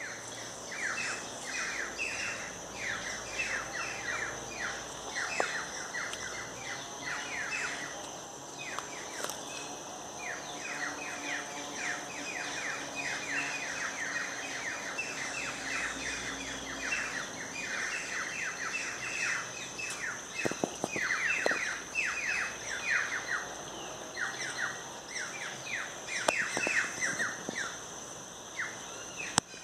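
Birds chirping: a near-continuous run of short, downward-sliding chirps, several a second, over a steady high-pitched tone.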